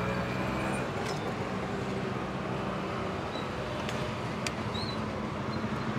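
Steady street traffic noise from passing road vehicles, with a low engine hum and a couple of sharp clicks.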